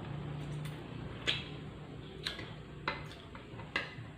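Eating at a table: spoons clicking against plates, four short sharp clicks over a steady low hum.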